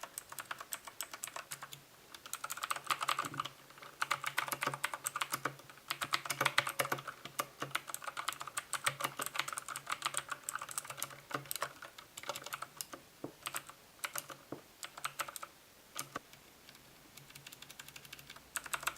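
Typing on a Redragon K555 Indrah mechanical keyboard with clicky blue switches: fast runs of sharp key clicks with short pauses, thinning out near the end.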